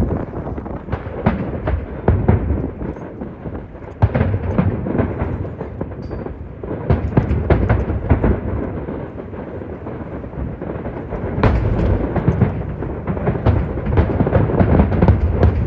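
Aerial fireworks bursting in rapid volleys of sharp bangs over a continuous low rumble, with strong wind buffeting the microphone. The barrage eases twice, a little before the first third and again past the middle, and heavy bangs come about four seconds in and again near the three-quarter mark.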